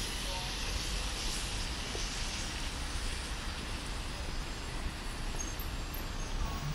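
Wet city street ambience: a steady hiss of rain and traffic on wet road, with a low rumble underneath.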